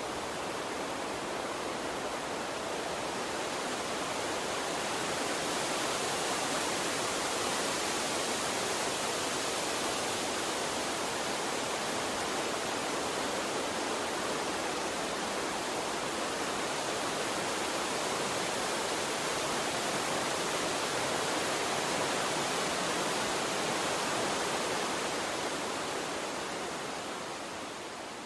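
Steady rushing of a gentle water stream: an even hiss with no separate splashes or other events, starting to fade out near the end.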